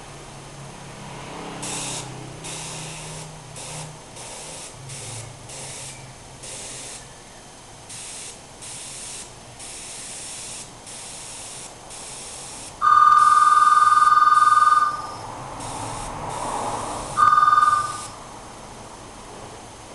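Airbrush spraying in many short, separate bursts of high air hiss as the trigger is pressed and released. Twice near the end a loud steady high tone sounds, once for about two seconds and then briefly.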